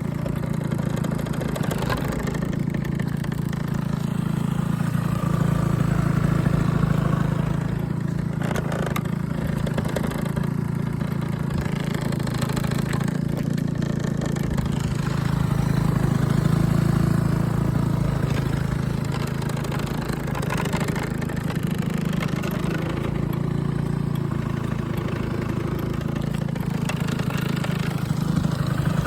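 Vehicle engine running steadily at idle, swelling slightly twice as the revs rise a little. The seller describes this engine as making an abnormal noise.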